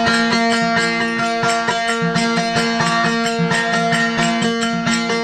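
Instrumental passage of a Marwari desi bhajan: a steady drone note under a melody of changing notes, with quick, regular plucked strokes.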